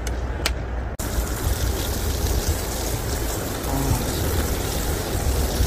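Meat sizzling in a frying pan held over a wood fire: a dense, steady hiss that starts abruptly about a second in. Before it, the fire crackles with a few sharp snaps.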